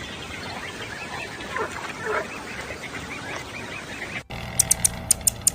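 Swan calling: a few honks among faint repeated higher calls, cutting off abruptly about four seconds in. Near the end comes a quick run of sharp clicks, several a second.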